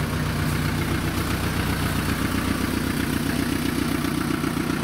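Diesel engine of a UAZ off-roader, a swapped-in Mercedes OM616 four-cylinder, idling steadily with an even, regular beat.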